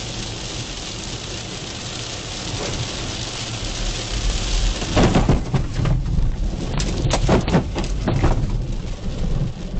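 Rain and road spray hitting a car's windshield, with tyre noise on a wet highway, heard inside the car. From about five seconds in it grows louder, with a run of irregular splashes as spray from a truck alongside hits the glass.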